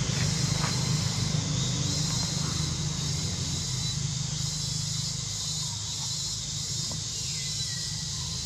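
Steady outdoor forest background: an even high hiss over a low hum, with a few faint rustles of dry leaf litter.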